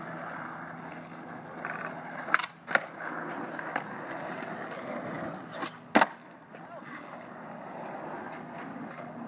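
Skateboard wheels rolling over rough concrete, broken by a few sharp clacks of the board against the ground, the loudest about six seconds in.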